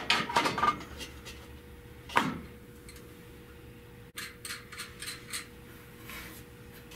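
Metal clinks and knocks as a chrome car air cleaner housing is handled and set down, with a louder knock about two seconds in. Then come a sharp click and lighter ticks and taps as hands work around the carburetor.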